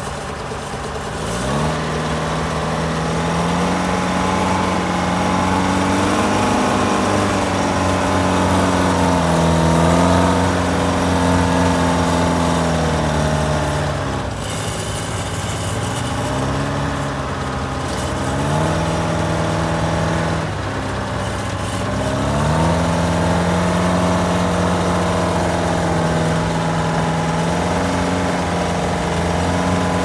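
1972 Case 1150 crawler loader's engine running under load while it digs and shoves dirt, the revs sagging and climbing back several times as the bucket works.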